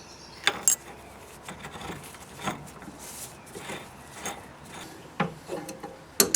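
Irregular metal clicks and light scraping as a washer and an extended nut are fitted and threaded by hand onto the steering gearbox shaft under the pitman arm.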